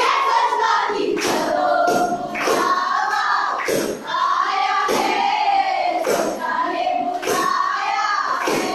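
A group of young performers singing a chant in unison, with sharp hand claps about once a second marking the beat.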